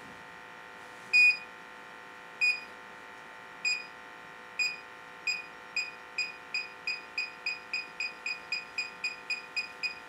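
Electronic combustible gas leak detector beeping as its probe is held at the gas shut-off. The beeps come about once a second at first and quicken steadily to about three a second, the faster rate signalling a stronger reading of combustible gas.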